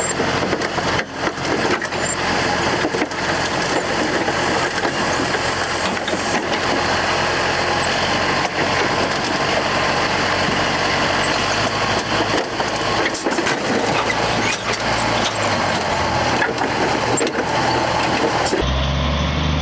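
Heavy machinery running with a steady loud noise and frequent knocks and clanks; near the end it gives way to the low, steady drone of a heavy engine.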